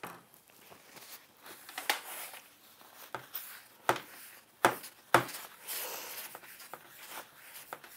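Acrylic paint palette being wiped clean by hand, a soft rubbing scrape with several sharp knocks and taps on the table.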